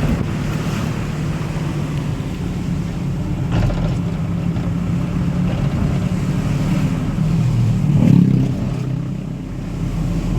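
Vehicle engine and road noise heard from inside a moving car: a steady low drone that swells briefly about eight seconds in.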